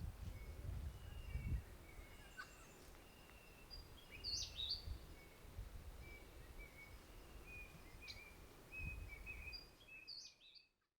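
Birds calling faintly: short whistles and chirps with a few sharp upward notes, over a low uneven rumble. The sound fades out near the end.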